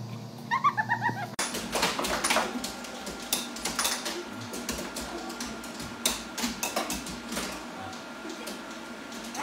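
A few short high-pitched cries in the first second. Then the sound changes abruptly to irregular sharp clicks and knocks of an air hockey table in play, with a dog walking across the table top.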